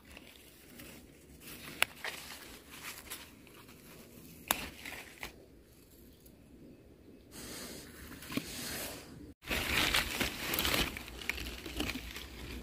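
Leaves rustling and crinkling as strawberries are picked by hand, with a few sharp clicks. The rustling is louder and denser in the last few seconds.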